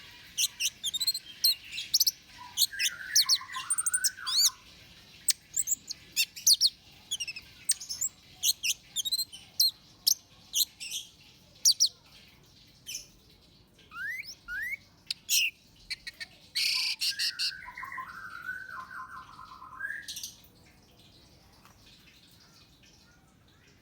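Orange-headed thrush singing: a rapid run of varied high chirps and whistled notes, broken twice by a lower warbling phrase, thinning out and stopping about twenty seconds in.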